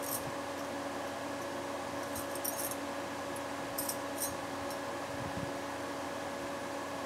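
Electric pedestal fan running with a steady hum and whir. A few brief light clinks or jingles come about two and four seconds in.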